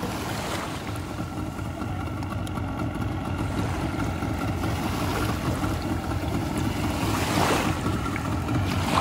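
Wind buffeting the microphone over small waves washing in shallow sea water, with a louder rush of noise about seven and a half seconds in.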